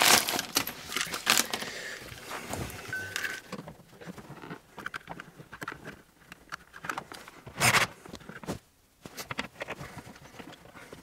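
Handling noise from fitting a double plug socket faceplate: rustling of wrapping and light plastic clicks and scrapes as the faceplate is pressed onto its wall box, with one louder scrape about three quarters through.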